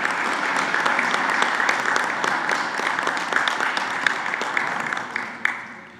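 Audience applauding, many hands clapping in a dense patter that fades away near the end.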